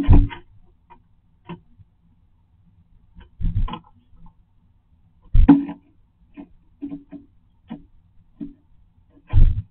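Thumps and light taps on a wooden nest box as a great tit clings and moves about at the entrance hole. There are four louder knocks spread unevenly, with lighter taps between them.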